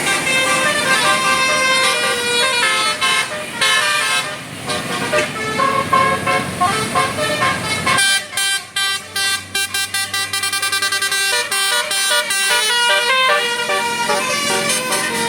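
Telolet basuri multi-tone musical bus horn playing a quick melody of stepping notes. About halfway through the notes turn short and choppy, with brief gaps between them.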